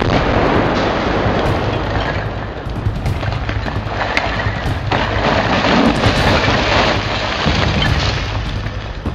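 Demolition charges firing at the base of a brick chimney with a sudden blast, followed by a long noisy crash as the chimney topples. A second surge comes about five seconds in as it hits the ground. Background music runs underneath.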